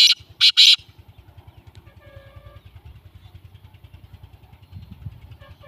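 Black francolin calling, loud harsh notes in the first second, closing its call. After that a steady low engine putter, like an idling motorcycle, runs underneath.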